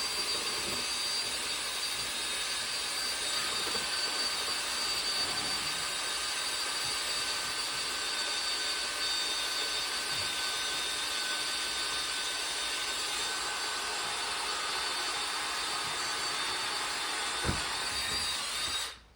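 Electric drill with a masonry bit boring into a concrete block wall, its motor whining at a steady speed, with a brief knock near the end before it stops. The wall is very hard to drill into.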